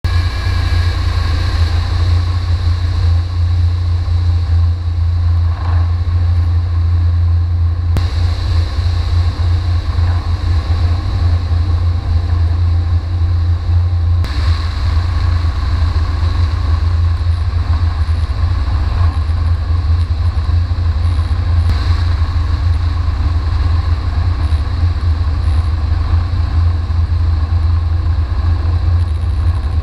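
Steady heavy wind rush on a wing-mounted microphone over the low drone of a Flight Design CT2K's engine and propeller at landing power. The sound stays level throughout, with a few faint sharp ticks.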